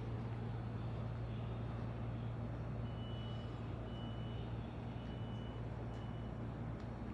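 Steady low hum with four short, high-pitched electronic beeps about a second apart in the middle.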